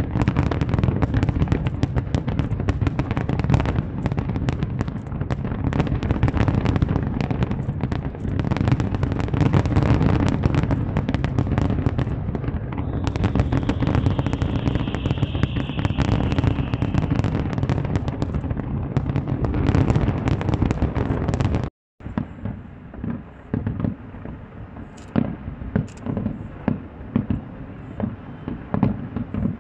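Large fireworks display: a dense, continuous barrage of bangs and crackling, heavy in deep booms, with a hiss rising over it for a few seconds midway. The barrage breaks off abruptly about 22 seconds in, and sparser single bangs follow.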